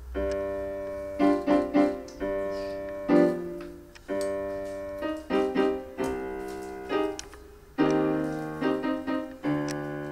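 Electronic keyboard playing a simple tune in a piano-like sound: chords and single notes, each struck and fading, with quick runs of short notes between longer held ones.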